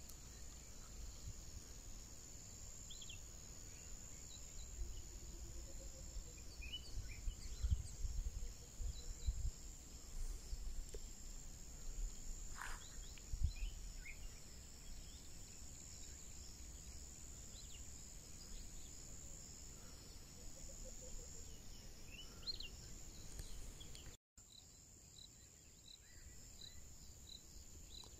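Steady high-pitched insect drone in the countryside, with scattered short bird chirps and bursts of low rumble from wind on the microphone. After a cut near the end, a regular chirping at about two chirps a second.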